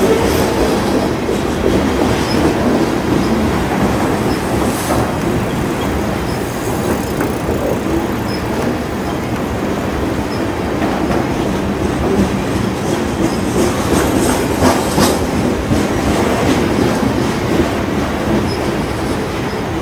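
Loaded coal train of open hopper cars rolling steadily past at close range, its wheels rumbling and clattering on the rails, with a few sharper clanks about five seconds in and again near the middle.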